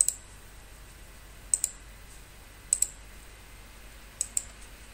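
Computer mouse clicking: a single click, then three quick double clicks, each about a second and a half apart.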